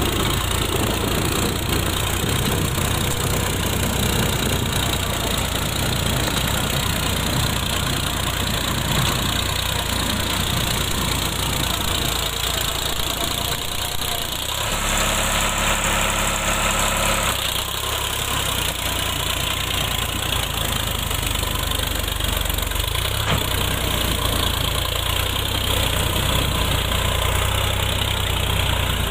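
Sonalika DI-35 RX Sikander tractor's three-cylinder diesel engine running steadily under load as its tyres churn through mud and water, with the splash and spatter of the thrown mud. For a few seconds about halfway through, a steadier, higher tone joins the engine.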